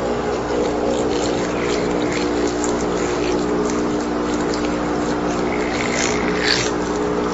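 Loudspeaker driven hard with a 60 Hz sine wave, its cone loaded with a cornstarch-and-water slurry. It gives a steady low buzz with many overtones, with irregular crackling ticks over it.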